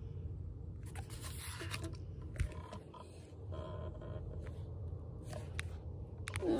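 A hard plastic card case being handled and turned close to the phone's microphone: scattered scrapes and rubbing, with one sharper tap about two and a half seconds in, over a steady low hum.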